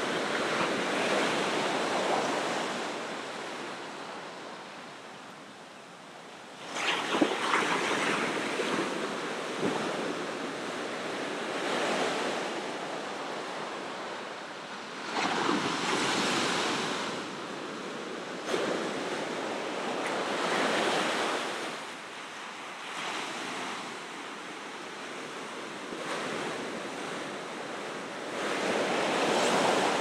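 Ocean surf: waves breaking and washing ashore, coming in surges every few seconds. The sharpest crash comes about a quarter of the way in, and another wave swells up near the end.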